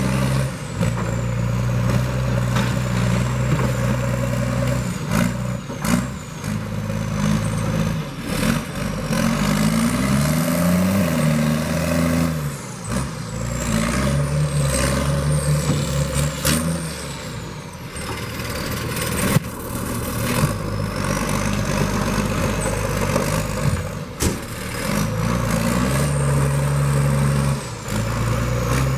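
Heavy diesel logging machine working: its engine revs up and falls back again and again, with a high whine rising and falling over it and scattered clanks and knocks.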